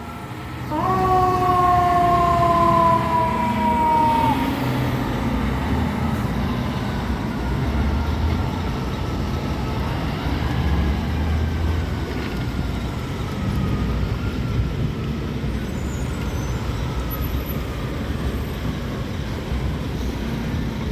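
Fire truck sirens over the steady low rumble of truck engines. Just after the start a siren tone comes in and slides slowly down in pitch for a few seconds. About halfway through, a fainter siren rises and then falls away slowly.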